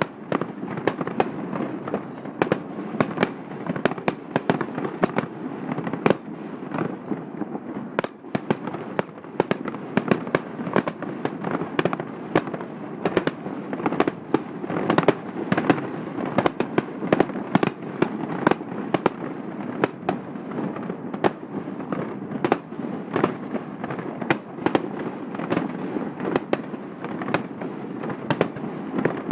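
Aerial fireworks bursting in quick succession, several sharp bangs a second over a continuous crackle.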